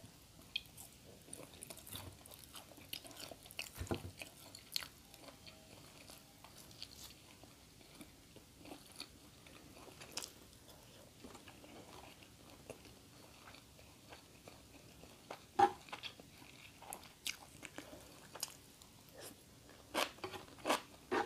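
A person eating close to the microphone: quiet chewing with scattered short crisp bites, a few louder ones near the end.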